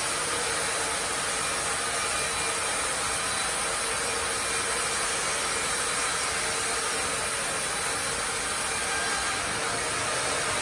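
Carriage band sawmill running steadily, the log carriage carrying a tree-of-heaven log through the blade: an even, continuous machine noise with no breaks.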